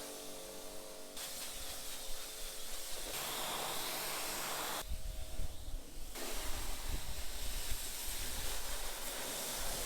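Pressure washer spraying water with a steady hiss, in several short clips that change abruptly, a deeper rumble joining about halfway through.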